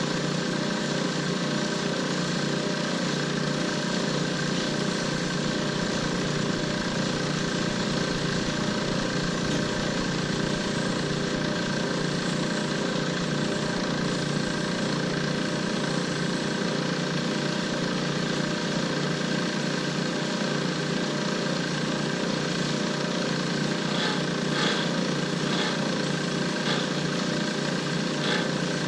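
Lathe running steadily with an even motor hum, with a few light clicks near the end.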